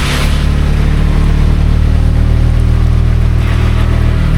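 Auto-rickshaw (tuk-tuk) engine running steadily under way, heard from inside the open cab, with heavy rain falling; the engine note changes a little near the end.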